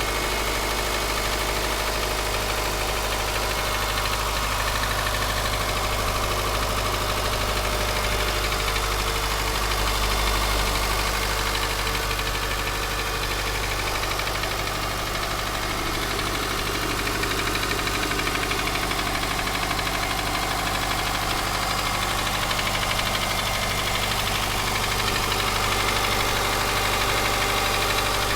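Subaru Forester SG5's EJ203 2.0-litre flat-four idling steadily just after a cold start, with a knock from the engine. This is the cold-engine knock that, according to the owner, lasts three to four minutes and then fades away as the engine warms.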